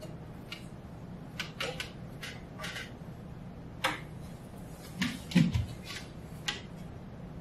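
A quiet room with a steady low hum, broken by scattered small clicks and taps, about a dozen in all. One louder, lower sound comes about five seconds in.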